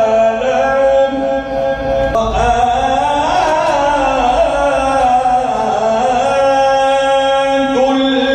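Quran recitation chanted by a single voice, holding long drawn-out notes: a steady held pitch, a slow wavering glide in the middle, then another long held note.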